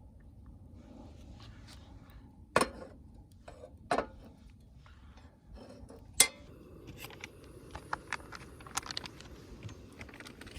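Eating utensils and dishes clinking and knocking: a few sharp clinks, the loudest about two and a half, four and six seconds in, followed by a run of lighter ticks.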